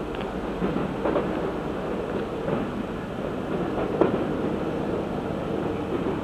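Fireworks going off: irregular sharp bangs every second or so over a steady rolling rumble of shell bursts.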